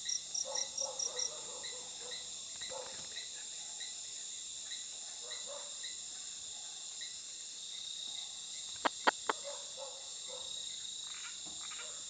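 Night insect chorus of crickets: a steady high-pitched trill with regular chirps, and one fast pulsing chirp that stops about a second in. Three sharp clicks come in quick succession about nine seconds in.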